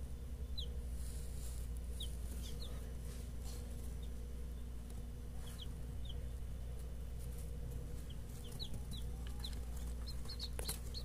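Balão-breed baby chicks peeping: about a dozen short, high chirps scattered through, over a steady low hum.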